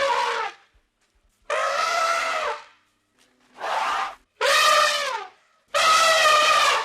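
An animal calling about five times in a row, each call drawn out for around half a second to a second, with its pitch dropping at the end.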